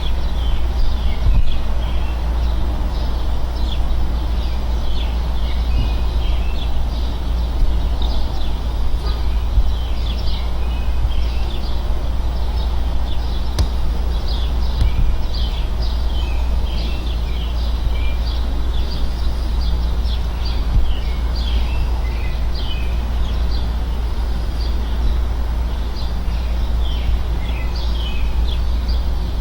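Steady low hum and whir of neighbours' outdoor central air conditioner units running continuously, with birds chirping over it throughout.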